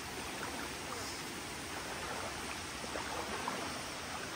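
River water flowing steadily.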